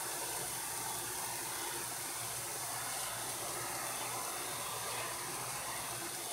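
Steady fizzing hiss of acid reacting with an aluminium drink can, bubbles rising off the corroding metal as the reaction heats up.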